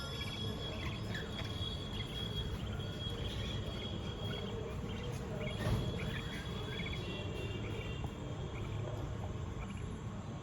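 Budgerigars chirping in short, high, scattered bursts over a steady low hiss.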